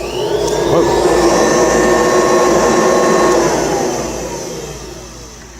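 1979 Kirby Tradition upright vacuum, converted to a metal fan, switched on: its motor spins up with a rising whine and runs steadily for about three seconds. It then winds down, the whine falling in pitch and fading.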